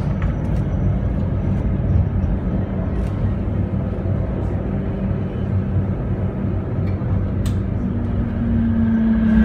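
Electric tram running along the street, heard from inside the car: a steady low rumble of wheels on rail and running gear, with a few light clicks. A steady hum comes in near the end.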